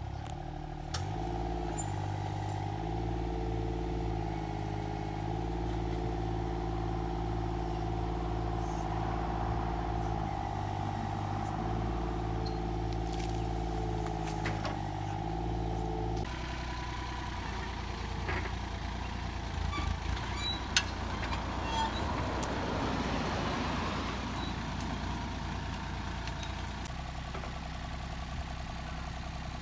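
A motor vehicle's or machine's engine running. Its pitch rises about a second in, then holds with small dips. About halfway through the sound changes abruptly to a lower engine note with scraping and clinking, and one sharp knock.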